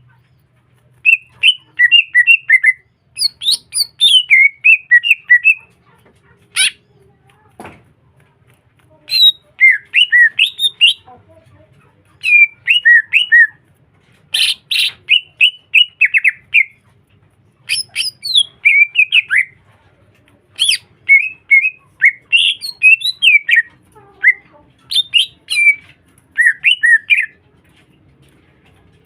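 Green leafbird (cucak hijau) in full, sustained song: loud, rapid chattering phrases of quick sliding notes, each one to two seconds long with short pauses between. A few sharp clicks stand out.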